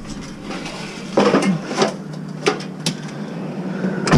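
A handful of short, irregular knocks and clatters, like hard objects being handled or bumped, over a low background hum.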